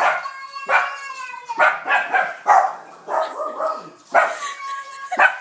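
Dogs barking and whining in an excited outburst, with a sharp, held call about every second.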